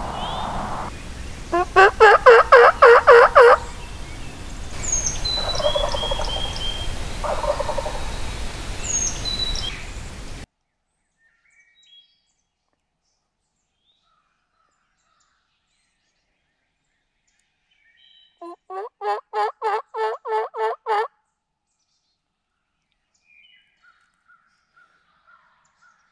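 Wild turkey tom gobbling twice: a loud gobble about two seconds in, and a second, quieter one past the middle. The background hiss cuts off abruptly between them.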